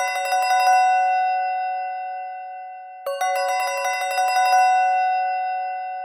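Palm Pre ringtone playing: a quick run of bell-like chiming notes that rings on and fades, then repeats about three seconds later.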